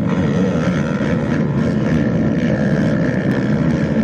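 Engine running with a steady, loud rumble.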